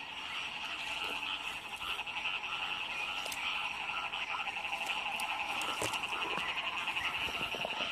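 A chorus of small field frogs calling after heavy rain, a dense, steady, pulsing trill of many voices. A few brief clicks and rustles of grass come in the second half.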